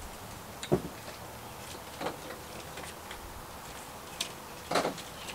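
Metal serving tongs handling food on a plate, giving about four light, scattered clicks and knocks over a faint, steady outdoor background.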